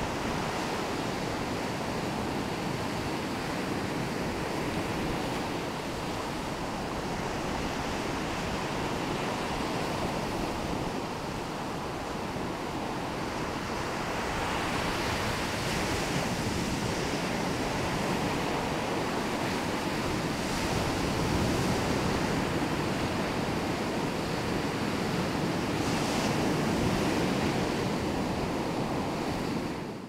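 Ocean surf: waves breaking and washing up the shore in a continuous rush that swells and eases as each wave comes in, a little louder in the second half.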